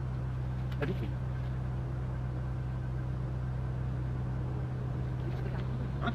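Steady low drone of an engine running, with a brief click about a second in.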